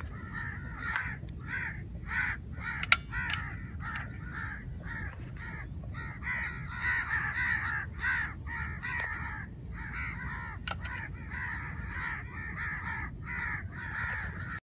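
Crows cawing over and over, several short calls a second, with a sharp click about three seconds in.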